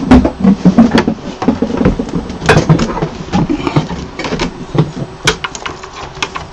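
Irregular knocks, taps and clatter of a resin printer's metal housing and parts being handled and turned around, with many sharp clicks at uneven spacing.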